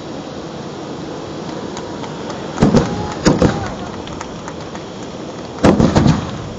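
Hand-held tezutsu fireworks spraying with a steady loud rushing hiss, broken by sharp bangs: two about two and a half and three seconds in, and a pair more near the end.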